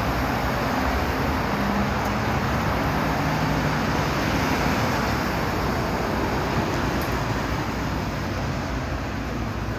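Road traffic noise from a police car and a police van driving past: a steady mix of engine and tyre noise with no sirens.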